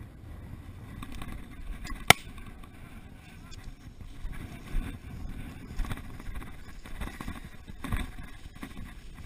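Footsteps through grass, soft thumps about once a second, with wind rumbling on a head-mounted camera's microphone. A single sharp crack about two seconds in.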